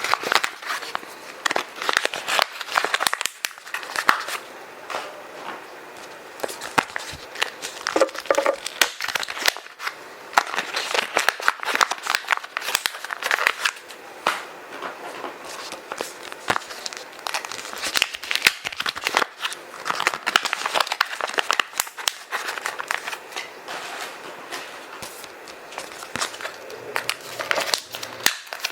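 Kraft paper and plastic bags crumpling and crinkling as they are stuffed into a zip bag: a dense, irregular run of crackles with frequent louder bursts.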